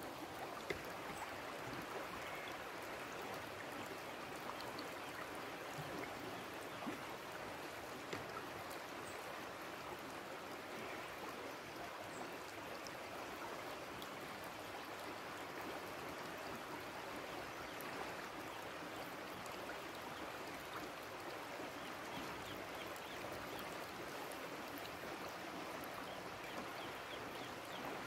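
River water flowing steadily over rippled shallows, an even rushing hiss with a few faint ticks.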